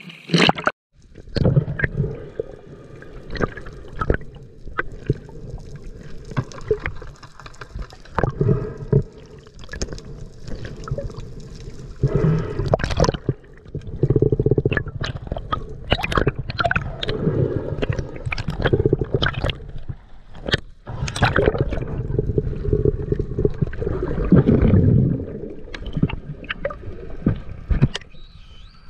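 Water heard through a submerged camera housing: muffled sloshing and gurgling, with many scattered sharp clicks and knocks.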